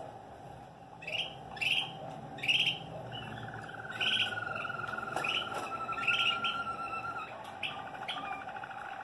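Malinois Waterslager canaries singing: short repeated chirps, and from about three seconds in a long, low, fast rolling trill held for several seconds.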